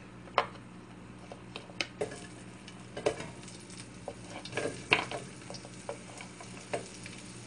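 Chopped onion sizzling quietly in a hot frying pan, with irregular clicks and knocks of a wooden spoon tapping and scraping on the plate and pan as the onion is pushed in and stirred.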